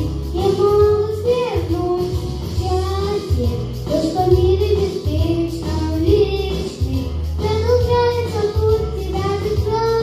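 A young boy singing a pop song into a handheld microphone over a recorded backing track with a steady bass beat.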